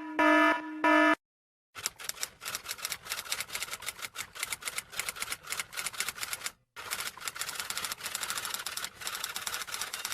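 The last pulses of an electronic beeping tone, then, after a moment's silence, a typewriter typing sound effect: rapid, uneven key clacks for about eight seconds, with a brief pause about two-thirds of the way through.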